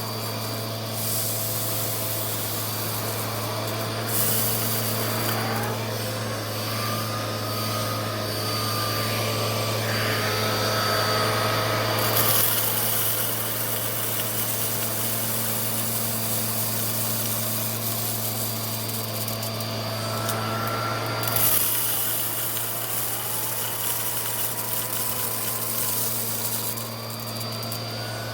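Vacuum cleaner running steadily over a rug, its motor whine gliding up and down several times. There are stretches of brighter hiss as it picks up spilled rice.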